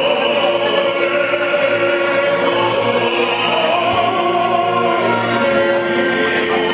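A man singing opera through a handheld microphone, holding long notes that change pitch every second or so.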